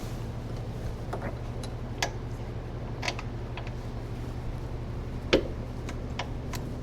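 Scattered light clicks and taps of parts and tools being handled during suspension reassembly, about six in all with the loudest a little past five seconds in, over a steady electrical hum.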